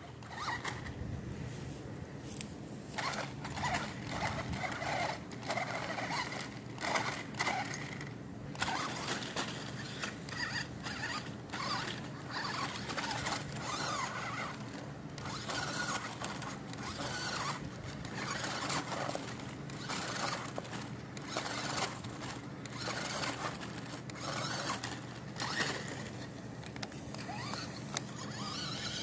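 Small all-wheel-drive RC off-road car's electric motor and gears whirring in short, uneven spurts as the throttle is worked, with knocks and scrabbling from the tyres as it climbs the concrete sewer lid riser and drives over grass.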